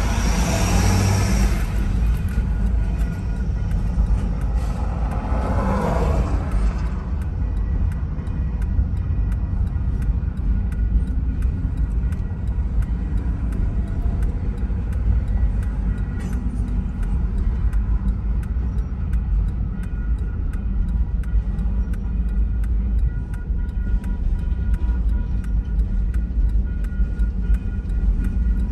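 Double-stack container freight train rolling through a grade crossing, a steady low rumble of wheels on rail heard from inside a car. It is louder in the first couple of seconds, and from about a quarter of the way in a regular light ticking runs on.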